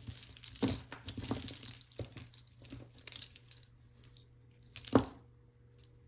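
Loose jewelry pieces clinking and jangling against each other as they are picked through and handled, in several short spells with a sharper clack about five seconds in.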